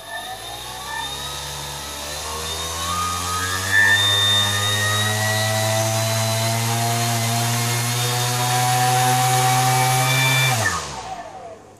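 NTM brushless drone motor, fitted to a heavy piece of timber, spinning up over a few seconds, running at a steady high speed with a whirring hum, then spooling down and stopping near the end. On the timber it runs smoothly, a test the owner takes to show that the X580 frame's weak motor mounts, not the motor, were the problem.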